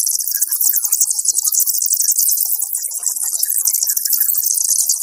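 Loud, steady insect chirring: a dense, rapidly pulsing high-pitched buzz like a chorus of crickets or cicadas.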